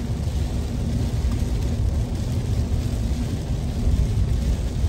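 Inside a car's cabin while driving in heavy rain: a steady low rumble of engine and tyres on the wet road, with a faint hiss over it.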